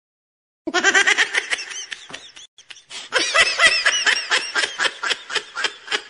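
A person laughing in quick, repeated high-pitched bursts, starting about half a second in, with a brief pause near the middle: a laughing meme sound effect.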